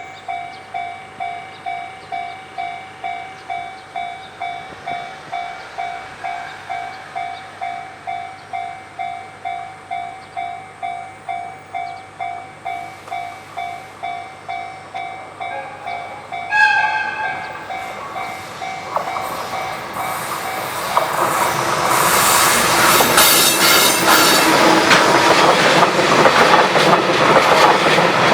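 Japanese level-crossing warning bell sounding its even electronic clang about twice a second. About sixteen seconds in, an electric locomotive gives a short horn blast. From about twenty-one seconds a JR Freight train passes over the crossing, and the rumble and clatter of its wheels grow loud and cover the bell.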